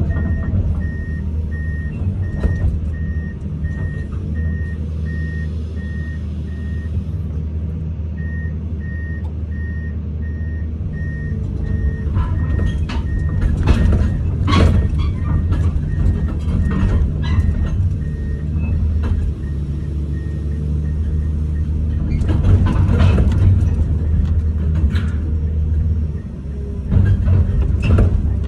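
Komatsu 210 excavator's diesel engine running, heard from inside the cab, with a warning alarm beeping steadily about twice a second that pauses briefly about seven seconds in. Loud metallic knocks and clanks come in clusters in the middle and near the end.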